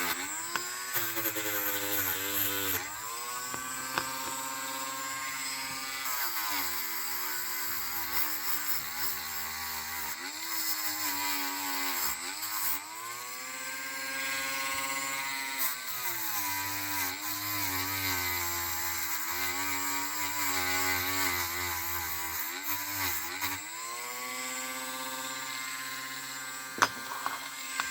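Dremel rotary tool with a wire wheel brushing oxidation off a die-cast metal toy car body. The motor's pitch sags and climbs back again and again as the wheel is pressed onto the metal and eased off.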